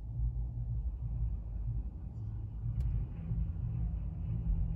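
Low rumble and hum inside a car's cabin, with a single sharp click just under three seconds in.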